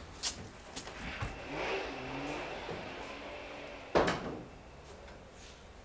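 A wooden cupboard door being handled: a few light clicks, a drawn-out creak, then a sharp knock about four seconds in.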